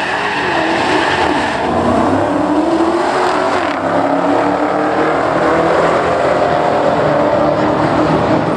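Two Dodge Challenger SRT Hellcats' supercharged 6.2-litre Hemi V8s at full throttle, accelerating hard down a drag strip. The engine note climbs in pitch through the gears.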